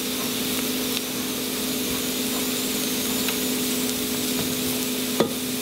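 Butter-and-flour roux with mushrooms and vegetables sizzling in a pot on the stove, over a steady hum, with a few light knocks and a sharper one near the end.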